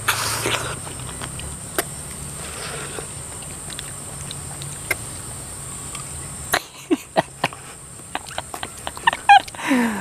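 Eating a ripe red dragon fruit: wet smacking and chewing clicks as the soft flesh is bitten, starting a little past halfway, with a brief falling hum from the eater near the end. Before that, a steady high-pitched buzz.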